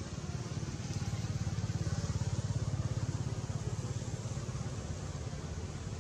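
A small engine running nearby with a rapid, even putter, swelling a little about a second in and easing off again after a few seconds.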